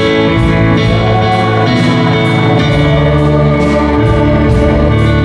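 Live praise-band music: an electronic keyboard playing chords and runs with a band, a guitar among them, over a steady beat of high cymbal ticks.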